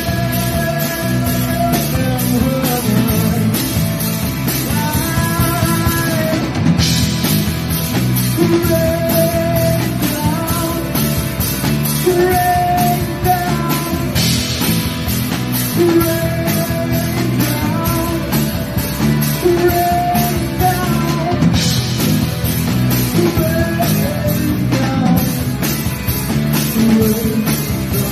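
Live rock band playing: electric guitars, bass guitar and a drum kit, with cymbal crashes every several seconds.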